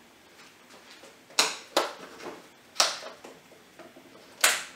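Four sharp clicks at uneven gaps of a fraction of a second to about a second and a half, from a gas stove as a frying pan is warmed over a lit burner.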